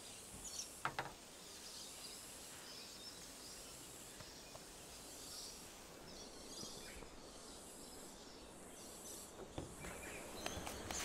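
Faint, steady hiss with scattered faint bird chirps and a small click about a second in.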